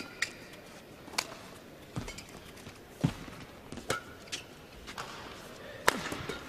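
A badminton rally: rackets strike the shuttlecock in sharp cracks about once a second, with brief squeaks of shoes on the court and the murmur of a large indoor crowd.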